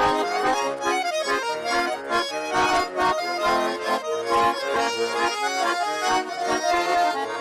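Russian garmon (button accordion) playing a lively folk tune, the melody carried over steady rhythmic bass-and-chord strokes.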